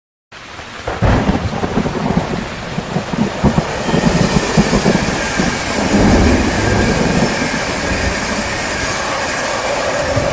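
Heavy rain with rolling thunder, starting abruptly after silence. The thunder rumbles strongest in the first two-thirds, then the steady rain hiss carries on.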